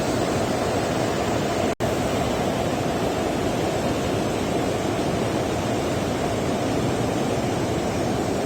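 A river running high in spate, rushing steadily as a dense wash of water noise. The sound cuts out for an instant about two seconds in.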